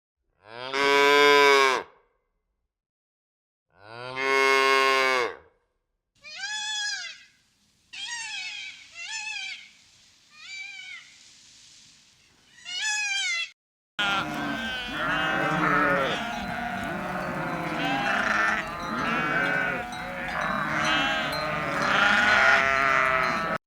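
Sheep bleating. First come two long, low calls. Then comes a run of short, higher-pitched bleats, one at a time. From about halfway, many sheep bleat over one another at once.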